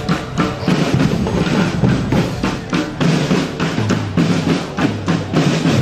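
Marching drum corps battery playing a fast, dense drum cadence: snare drums rattling over low, pitched bass-drum notes that shift from stroke to stroke.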